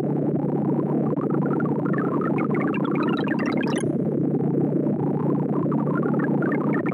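ArrayV sorting sonification: a rapid stream of short synthesized tone blips, one for each array access, with pitch set by the value being touched. The blips climb in runs toward very high notes, break off abruptly about four seconds in, then drop low and begin climbing again near the end.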